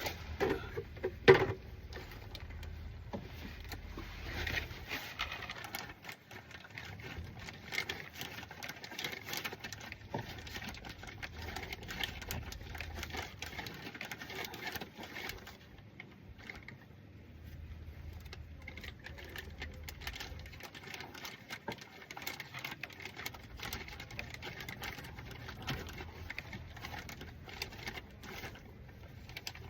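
Irregular light clicking and tapping of tools and parts being handled during an oil-filter change, with one sharp knock about a second in.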